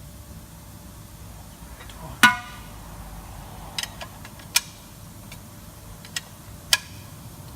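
Metal clinks of a 19 mm spanner working the oil sump drain plug loose: one loud clank with a metallic ring about two seconds in, then a few sharper, lighter metal clicks.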